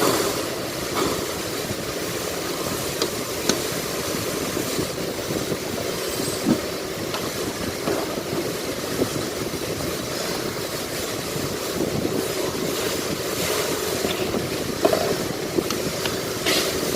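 Steady background noise with scattered short clicks and knocks of hand tools on engine parts.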